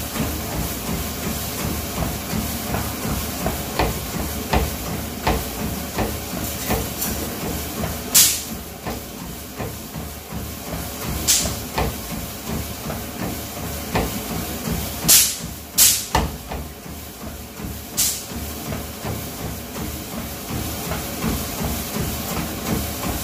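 Treadmill belt and motor running with a steady hiss and low hum, under regular footfalls of running shoes landing on the moving belt. Several short, loud rushes of hiss stand out in the middle.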